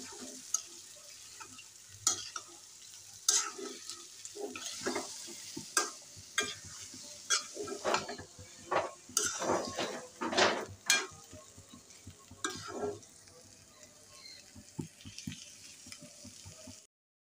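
Metal spatula scraping and stirring through a frying shrimp and vegetable mash in a black wok-shaped pan, over a steady sizzle. The scrapes come thickest in the middle and thin out afterwards, and the sound cuts off abruptly near the end.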